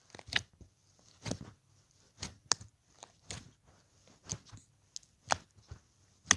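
Homemade slime being handled, giving short sticky clicks and pops about once a second, sometimes two in quick succession.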